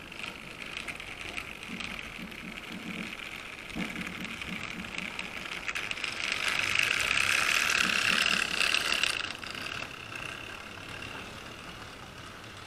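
Electric motor and gears of an OO gauge model diesel shunter whining as it runs slowly along the track, growing louder from about six to nine seconds in, then falling back. It is an older mechanism, probably Tri-ang or Lima, that needs extra power from the controller before it runs properly.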